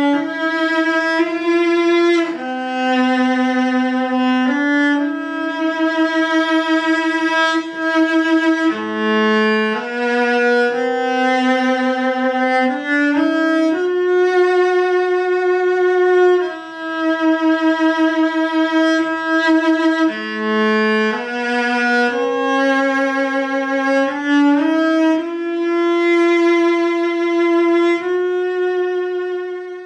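Solo cello, a ten-year-old Korean-made instrument, bowed in a slow melody of long held notes with vibrato, mostly in its higher register.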